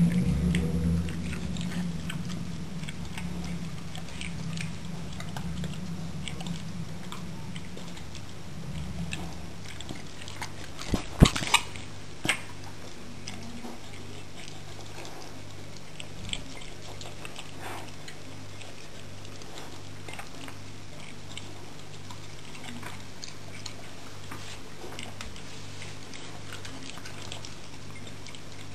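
Beagle eating from a plate, with many faint wet chewing and licking clicks. A low rumble fills the first several seconds, and a few sharp knocks come about eleven to twelve seconds in, the loudest sounds.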